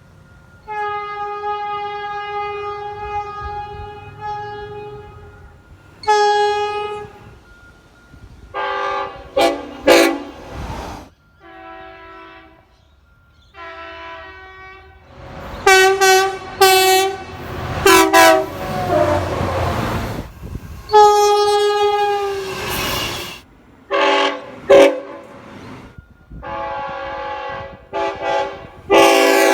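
Train horns sounding a series of blasts: one long blast about a second in, then many short blasts with a few long ones among them, separated by quieter gaps.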